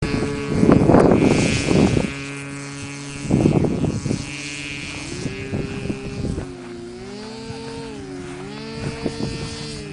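Small model airplane engine buzzing in flight, its pitch sliding up and down as it flies about. Two loud rushing bursts of noise come in the first four seconds.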